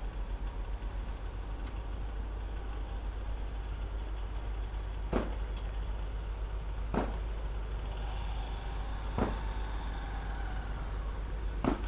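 Small diesel rail vehicle's engine running with a steady, pulsing low rumble as it rolls slowly past on the track. Four sharp clacks come about two seconds apart in the second half.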